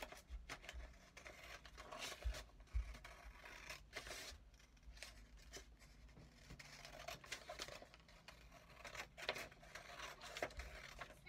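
Faint scissors snipping through a sheet of paper: a run of short, irregular cuts.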